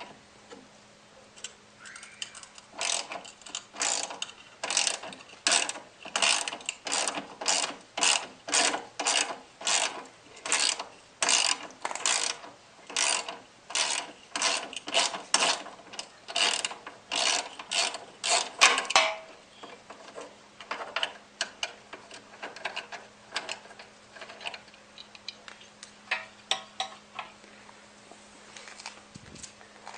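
Socket ratchet wrench with a 12 mm socket taking out a bolt: quick runs of ratchet clicks, about two a second, for some fifteen seconds. After that the clicks turn fainter and more scattered.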